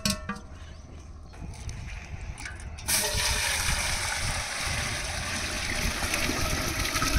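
Water poured from a steel vessel into a large metal cooking pot already holding some water, starting suddenly about three seconds in and splashing steadily into the pot.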